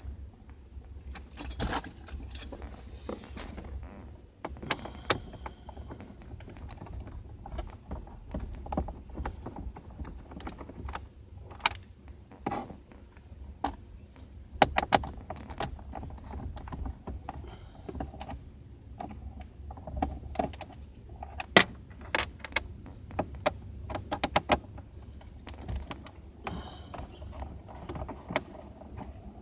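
Irregular clicks, knocks and clatter of hand tools and plastic and metal parts being handled while a car's steering column and dash trim are taken apart, over a low steady hum.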